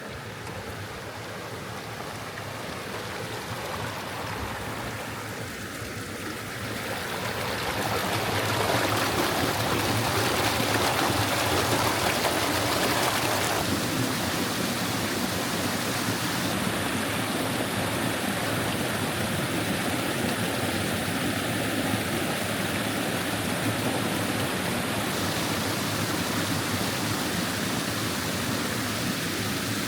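Steady rush of water from a creek waterfall, growing louder over the first eight seconds or so and then holding steady.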